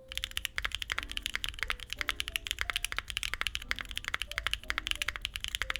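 Continuous typing on a mechanical keyboard with Bsun x Punkshoo Melody Redux tactile switches (POM stem) in a Neo60 Core with a carbon fiber plate, no foam and GMK keycaps. It is a dense run of keystroke clacks, several a second, a sound profile described as deep and muted with a high-pitched upstroke.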